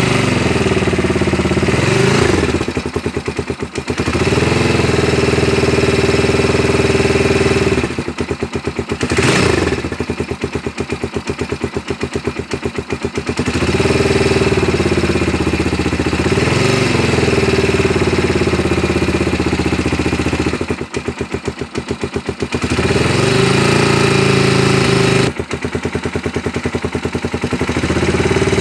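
Engine with audible rocker-arm (valvetrain) noise, running. It is revved up and held several times and drops back to a pulsing idle in between.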